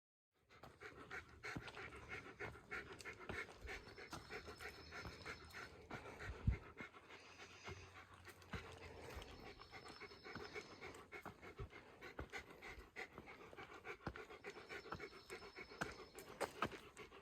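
A person breathing hard and fast, panting while climbing a steep uphill path. A single sharp knock sounds about six and a half seconds in.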